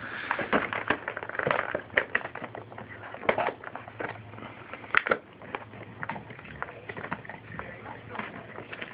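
An American bulldog chewing and tearing at an action-figure box, giving irregular crackling and crunching of packaging, with a few louder crunches along the way.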